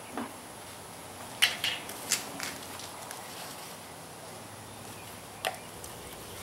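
A few light clicks and taps from handling a plastic vegetable-oil bottle and a metal charcoal chimney starter on the grill grate, over a faint steady hiss. Most of the clicks come close together between one and a half and two and a half seconds in, with one more near the end.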